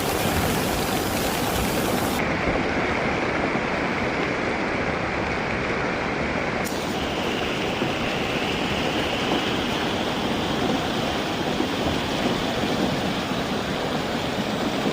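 Steady rushing noise of floodwater and heavy rain, with its tone shifting abruptly twice, about two and about seven seconds in.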